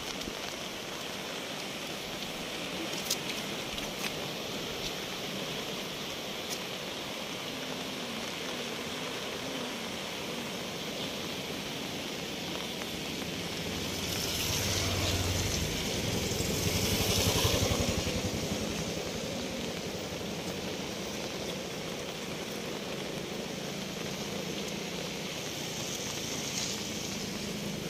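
Steady hiss of rain and rushing floodwater from a swollen river, growing louder for a few seconds around the middle.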